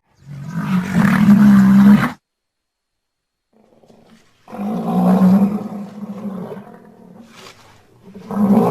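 Rhinoceros calling: a low, pitched call of about two seconds. After a silent gap comes a second, longer call that tails off, and a third begins near the end.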